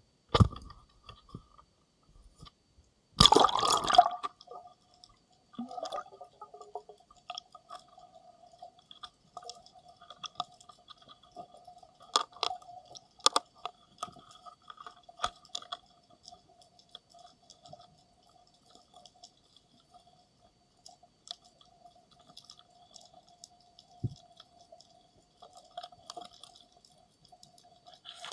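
A camera in its underwater housing splashing into the sea about three seconds in. After that, muffled underwater sound picked up through the housing: a faint steady hum with scattered clicks and ticks.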